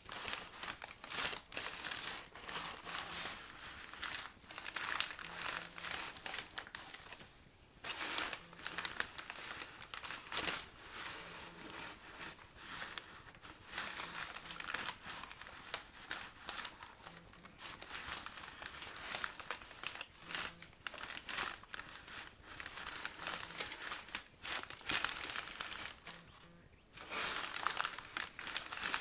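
Duro brown paper bags crinkling and rustling as they are shifted and pulled about, irregular and continuous, with a brief lull about a quarter of the way in and another near the end.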